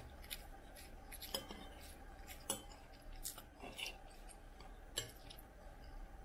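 Metal spoon scraping and clinking against a porcelain plate while scooping up rice, a handful of separate sharp clicks spread through it.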